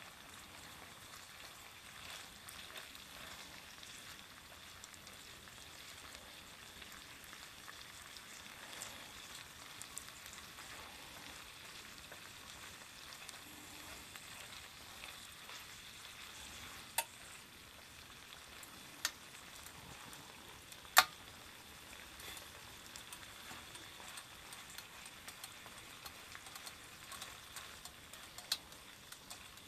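Sliced bulgogi beef sizzling in oil on an electric hot plate, stirred with chopsticks in a steady, quiet frying hiss. A few sharp clicks of chopsticks against the pan come in the second half, the loudest about two-thirds of the way through.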